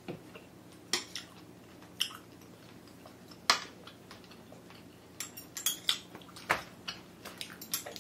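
Eating sounds: metal chopsticks clicking against a serving platter and a small sauce bowl, with close-miked chewing of steamed bullet squid. A few single sharp clicks come first, then a quicker run of small clicks over the last three seconds.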